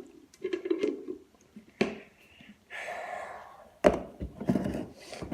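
Slime and its containers being handled on a table: several soft thunks, with a short rustle in the middle.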